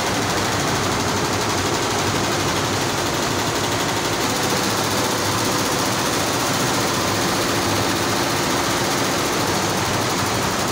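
Multi-head Maya computerized embroidery machine running at high speed: a steady, rapid clatter of its needles stitching.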